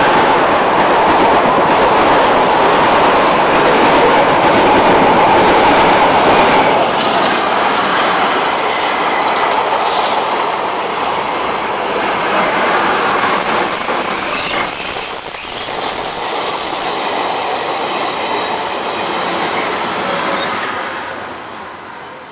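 Train running on rails: a steady, loud rumble and rattle of the wheels, with thin high wheel squeals about ten seconds in and again around fifteen to seventeen seconds. It fades away near the end.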